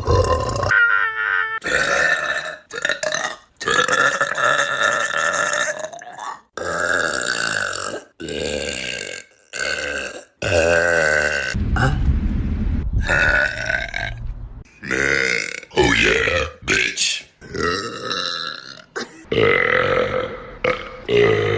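A string of loud human burps, one clip after another, cut off abruptly. Some burps are long and drawn out, with a pitch that bends up and down.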